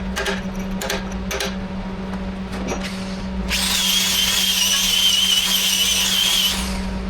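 A few sharp taps, then a handheld power tool starts up and runs with a high, slightly wavering whine for about three seconds before winding down, over a steady low hum.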